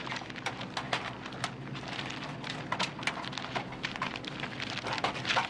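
Hands rummaging through an open cash register drawer: irregular small clicks and rustles over a steady low hum.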